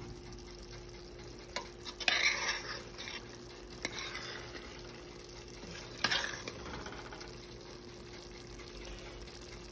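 A spoon stirring and scraping against a stainless steel pot of okra stew, in two short bouts about two and six seconds in with a few clicks before the first, over the faint sizzle of the stew simmering low in its oil.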